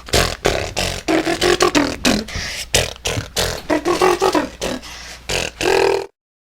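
A person beatboxing: quick mouth-made percussion clicks and pops with short hummed or sung notes between them. It cuts off suddenly about six seconds in.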